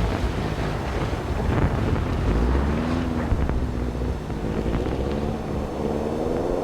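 Subaru Impreza (GDA) rally car's engine revving hard on a snow stage, its pitch climbing and dropping several times through gear changes, over heavy wind rumble on the microphone.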